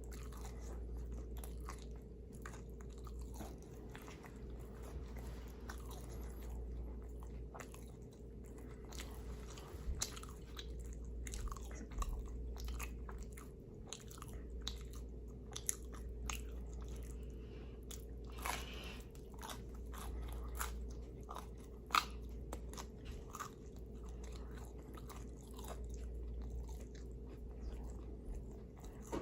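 Close-miked chewing and biting of pizza: crisp crunches and many short mouth clicks, irregular and spread throughout, over a steady low hum.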